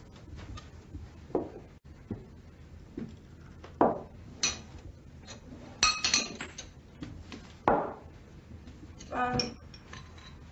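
Breakfast tableware clinking and knocking: tea glasses, plates and cutlery set down and handled, as scattered single clinks with a brighter ringing glass clink about six seconds in.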